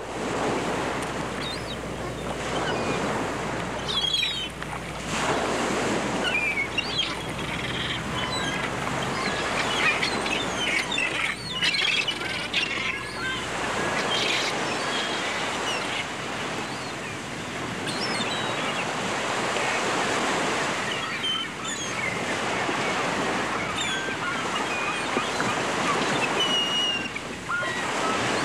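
Ocean waves washing in slow swells, with birds chirping and calling here and there.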